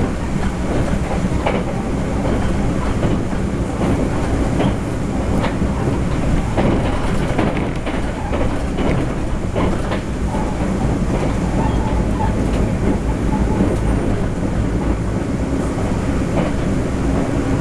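Cabin noise inside a TEMU1000 Taroko Express tilting electric train running at speed: a steady rumble from the wheels on the rails, with scattered sharp clicks.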